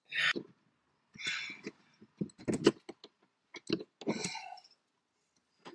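Intermittent hand-work sounds from fitting a fuel line to a van's fuel tank: short rustles and a series of sharp clicks and taps, with gaps of quiet between them.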